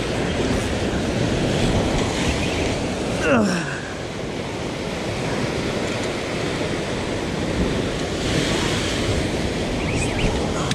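Sea waves surging and breaking in whitewater against the concrete blocks of a breakwall, a steady wash of surf with wind buffeting the microphone. A little over three seconds in, a short sound sweeps quickly down in pitch.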